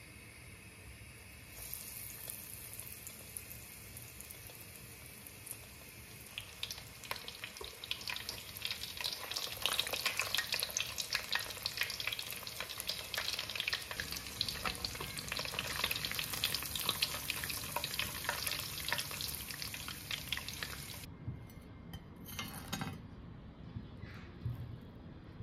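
Breaded mozzarella onion rings deep-frying in hot oil: steady sizzling that starts a couple of seconds in and builds into dense crackling. It cuts off suddenly near the end, leaving a few faint taps.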